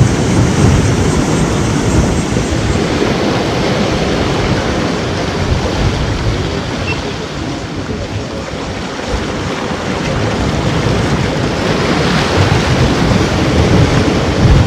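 Ocean surf washing against the shore, a continuous rush of water that eases a little midway and swells again near the end.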